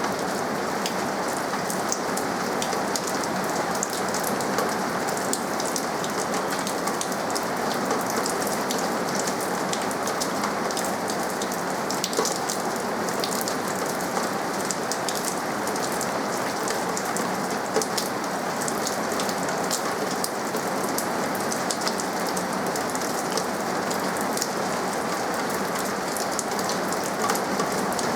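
Steady rain falling, with many individual drops ticking sharply on hard surfaces through an even hiss.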